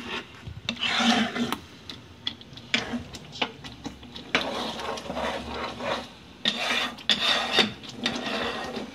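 Flat spatula scraping and stirring a thick gravy around a nonstick kadai in repeated rasping strokes. The constant stirring keeps the cashew and poppy-seed paste from catching on the bottom of the pan.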